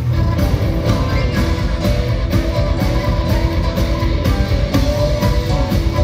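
Live rock band playing loudly on stage: electric guitars, bass and drum kit with a steady driving beat.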